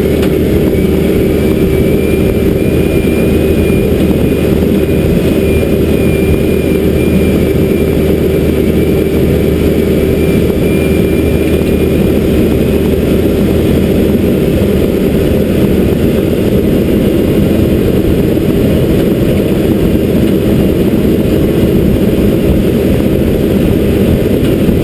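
John Deere backhoe loader's diesel engine running steadily under load while the machine drives along, with a faint high whine that fades out about halfway through.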